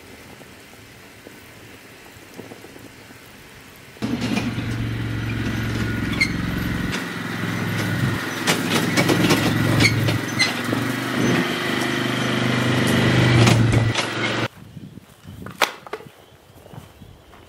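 A small engine running steadily at a constant pitch. It comes in suddenly about four seconds in, grows slightly louder, and cuts off abruptly about ten seconds later.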